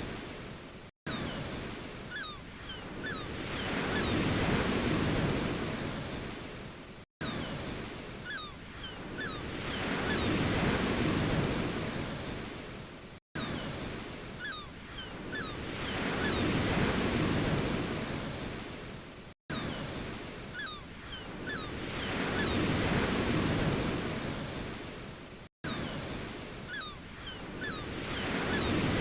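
Ocean waves washing in and receding, surging and fading about every six seconds. The same short recording repeats, each pass cut off by a brief drop to silence.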